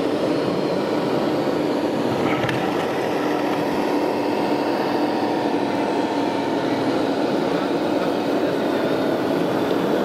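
Steady engine-like drone of 1:16 scale RC construction machines working, with a constant low hum and hall background noise; a faint click about two and a half seconds in.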